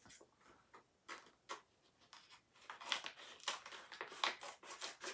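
Plastic pouch crinkling as it is handled, with a few light clicks, then a run of crisp rustles and scissor snips from about three seconds in as scissors cut the pouch open.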